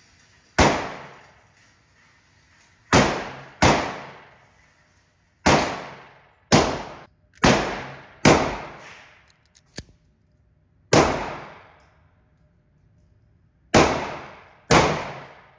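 Ten gunshots on an indoor shooting range, fired at uneven intervals. Each sharp crack rings on for about a second in the concrete-walled range.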